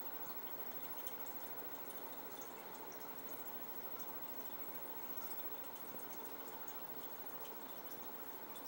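Steady trickling and dripping of aquarium water, many small splashes running on without a break.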